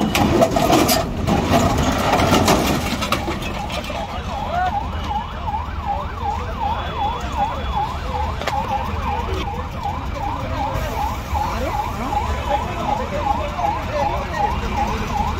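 Emergency vehicle siren in a fast yelp, its pitch rising and falling about three times a second, coming in about three seconds in over a steady low traffic rumble. The first few seconds hold a loud rushing noise.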